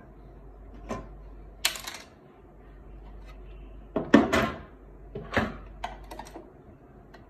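Plastic clicks and knocks from a laser printer's casing parts being handled and fitted, a series of separate sharp knocks with the loudest cluster about four seconds in.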